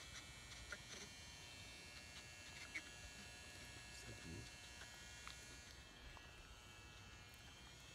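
Near silence with a faint steady electronic buzz made of several high thin tones, and a few soft clicks.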